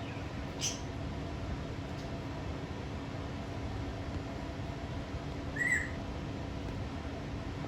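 Jardine's parrot giving two brief, short calls, one about a second in and one near the end, over a steady background hum.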